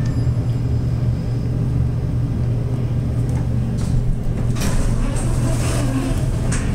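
Montgomery hydraulic elevator in travel: a steady low hum from the machinery. A few brief rustling noises come in the second half.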